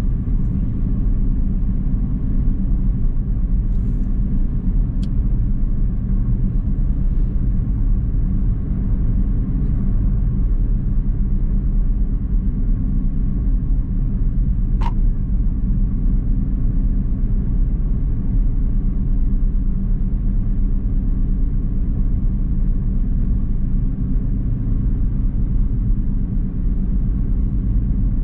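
Toyota sedan driving at a steady pace, heard from inside the cabin: a continuous low engine and road rumble. A single sharp click about fifteen seconds in.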